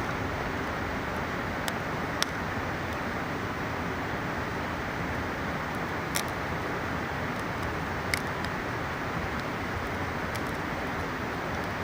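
Steady rush of a mountain river, with a few sharp pops and crackles from a wood campfire, the loudest about six seconds in.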